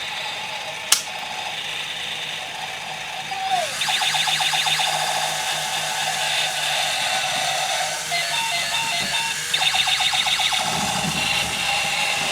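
Battery-operated toy robot running: a tinny electronic tune over the fast, rattling clicks of its small plastic gearbox, with a sharp click about a second in.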